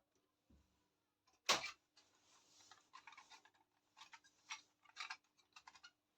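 Small plastic toy pieces being handled: one sharp tap about a second and a half in, a few soft clicks near the end, and a faint crinkly rustle between.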